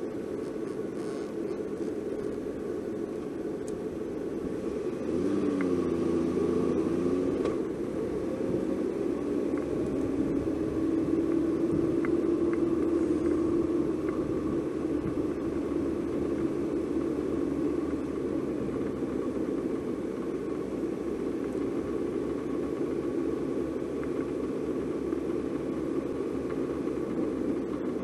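Car engine and road noise heard from inside a moving car, a steady rumble. About five to eight seconds in, a pitched engine note rises and falls briefly.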